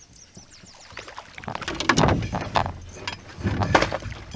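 Water splashing at the surface in two bursts, about halfway through and again near the end, as a topwater bass lure is worked across the water and a largemouth bass takes it.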